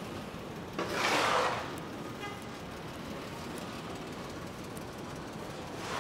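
City street traffic as a steady background din, with a loud rush of hiss that starts suddenly about a second in and fades within a second, and a smaller rush near the end.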